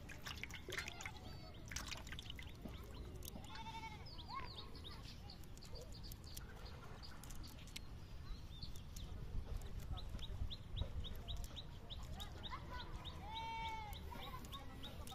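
An animal calls twice, about four seconds in and again near the end, over a low steady background. A few sharp knocks in the first two seconds come from live fish flapping in a steel plate, and a fast, even chirping runs through the second half.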